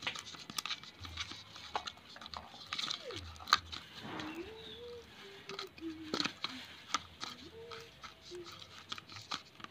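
Metal spoon stirring glitter slime in a plastic bowl, giving irregular clicks and scrapes of the spoon against the bowl. Faint wavering pitched calls sound in the background from about four seconds in.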